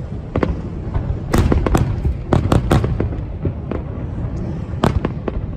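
Aerial fireworks bursting: a rapid, irregular series of sharp bangs and cracks over a continuous low rumble, with thick clusters of reports in the first half and another loud bang near the end.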